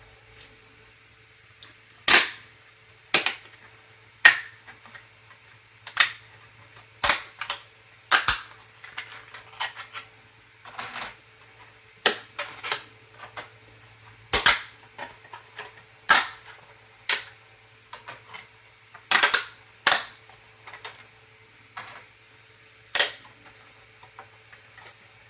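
3D-printed PLA pieces being snapped off their printed rafts: a series of sharp cracks, one every second or two, with smaller crackling between.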